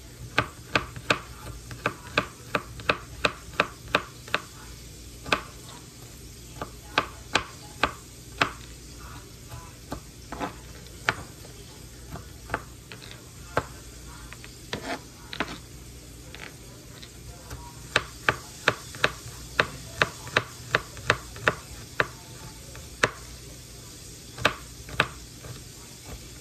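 Chef's knife chopping garlic cloves on a cutting board: sharp knocks of the blade against the board in quick runs of several strokes, with short pauses between runs.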